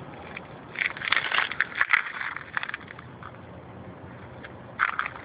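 Crunching footsteps on gravel and broken concrete rubble: a run of gritty crunches about a second in, and a few more near the end.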